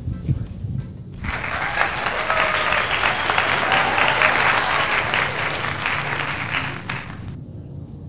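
Crowd applause, dropped in as a sound effect, starting abruptly about a second in and cutting off near the end.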